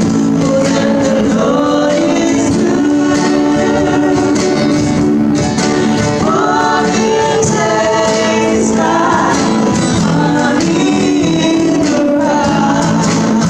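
A live gospel worship song: women singing together into microphones over strummed acoustic guitars.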